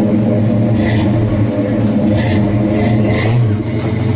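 Pontiac GTO's V8 running steadily through its dual exhausts, with a few short hissing noises over it.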